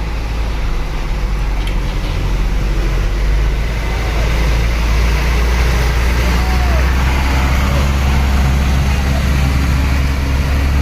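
Large bus engine running close by, a steady low rumble that grows a little louder a few seconds in.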